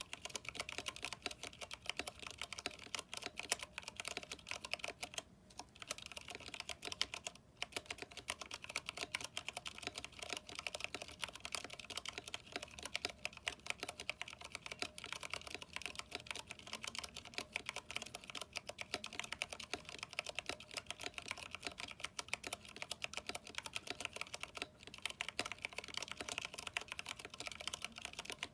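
Fast, continuous typing on a Vortex 10th Anniversary Edition mechanical keyboard with Cherry MX Brown switches and NP PBT keycaps: a dense run of keystroke clicks and clacks, broken by a couple of short pauses.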